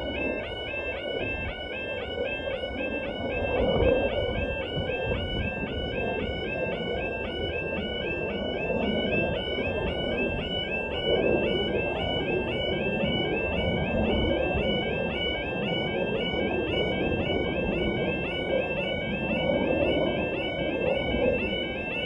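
Automatic half barrier level crossing alarms start suddenly and sound continuously: a very loud two-tone warble, the rapidly alternating UK 'yodel' alarm that warns of an approaching train while the barriers lower. A steady low rumble runs underneath.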